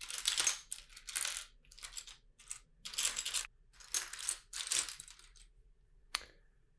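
Loose plastic LEGO bricks clattering as hands sift through a pile of pieces, in a run of short rattling bursts, followed by a single sharp click near the end.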